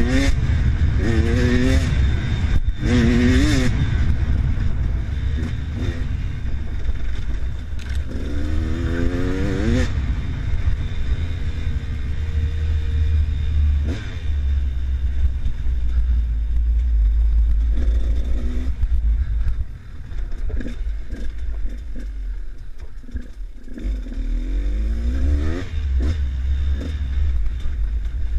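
Enduro motorcycle engine being ridden hard off-road, revving up in several rising bursts as the rider accelerates along the trail, over a heavy low rumble and clatter from the bike and riding.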